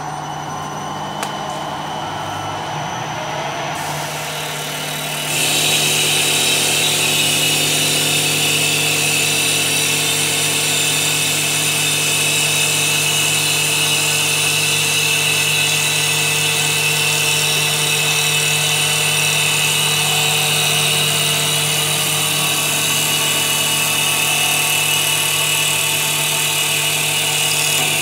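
CNC wood lathe running its automatic turning cycle: a steady motor hum, then about five seconds in the cutting starts and a loud, steady high-pitched whine with hiss carries on as the tool turns a square wood blank round.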